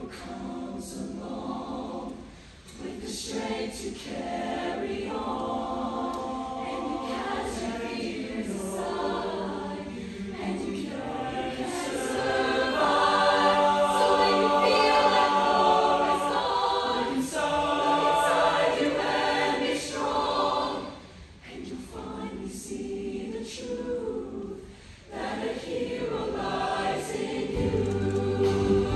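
Large mixed show choir singing in harmony, swelling to its loudest in the middle and briefly dropping back twice later on. A steady low bass note comes in near the end.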